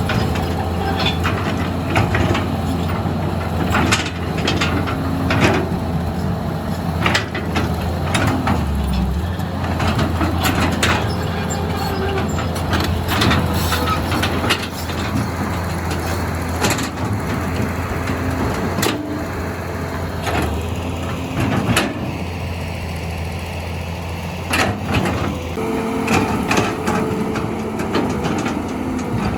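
Heavy diesel engine running steadily, with frequent sharp knocks and cracks over it.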